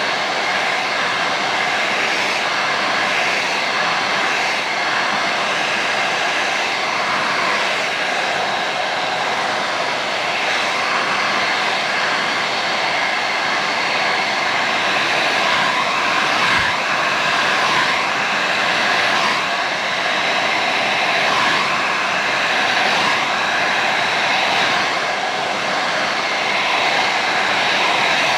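Handheld hair dryer running continuously: a steady rush of blown air with a faint even whine from its motor.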